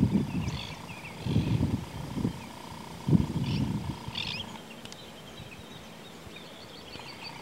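Outdoor pond ambience: low rumbling gusts of wind on the microphone come three or four times in the first four seconds, over faint chirping of small birds.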